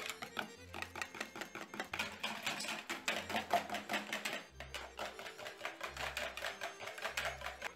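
Wire whisk beating eggs and yogurt in a bowl: rapid clicking of the wires against the bowl's sides, about eight strokes a second.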